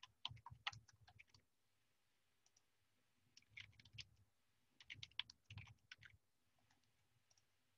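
Faint typing on a computer keyboard: three short runs of rapid keystrokes.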